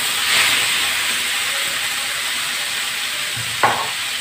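Yogurt-marinated chicken pieces sizzling in hot oil in a kadai, a steady hiss, with one short knock near the end.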